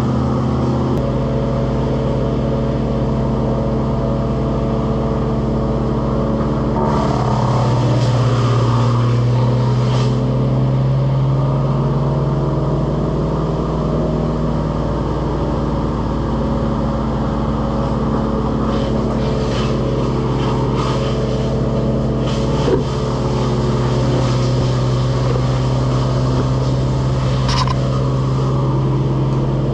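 An engine running steadily. Its pitch and level rise briefly about seven seconds in, then settle back, with a few light knocks over the top.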